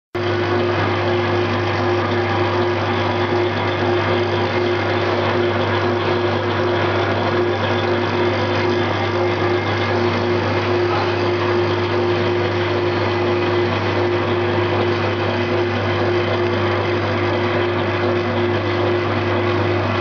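Eye-drop bottle plugging and screw-capping machine running steadily: a constant low motor hum with a steady higher tone over continuous mechanical clatter.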